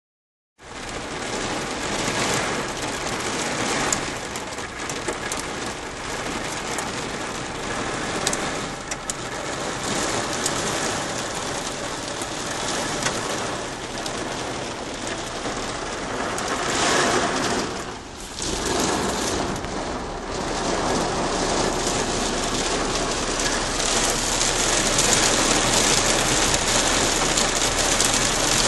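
Heavy downpour drumming on a car's roof and windshield, heard from inside the cabin. A low steady hum comes in about two-thirds of the way through.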